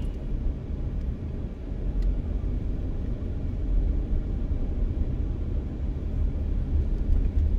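Low, steady rumble of a car running, heard from inside the cabin.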